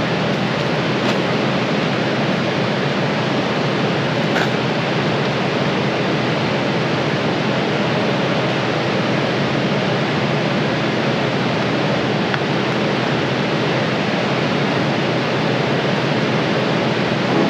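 Steady, loud rushing noise of moving air, even and unbroken, with no distinct events.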